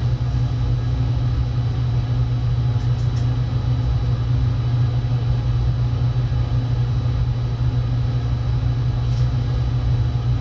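A steady low hum and rumble, unchanging throughout, with a faint hiss over it.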